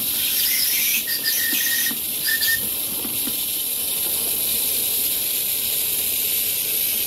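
Miniature live-steam tank locomotive blowing off steam at its safety valves: a steady hiss, with two short faint high tones about one and two seconds in.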